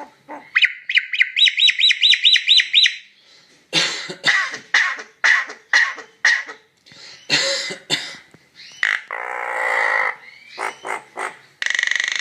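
A jalak klawu starling calling. It gives a quick run of about nine rising whistled chirps, then a string of short, harsh cough-like bursts, mimicking a human cough. Rasping, buzzy calls follow near the end.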